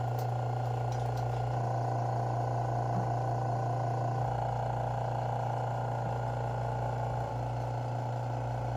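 Steady hum of the vacuum pump that holds the suction-cup seam-setter blocks to the quartz countertop.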